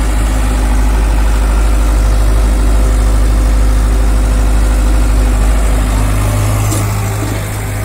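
Hyundai crawler excavator's diesel engine running steadily with a low, even hum while the machine swings its raised bucket of soil toward the trolley; the engine note shifts about six seconds in.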